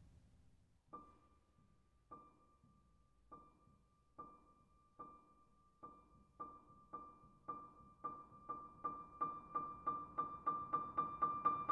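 Solo piano repeating one high note, struck slowly at first, then faster and louder until the strikes come about four a second near the end.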